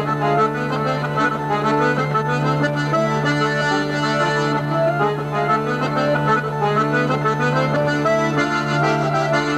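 Folk dance tune played on hurdy-gurdy, button accordion and bagpipes: quick melody notes over a steady low drone.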